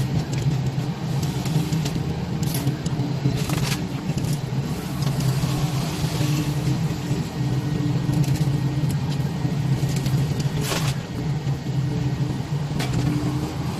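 Diesel engine of a wheeled excavator running steadily under load, with a faint on-and-off hydraulic tone. A few short, sharp cracks cut through it.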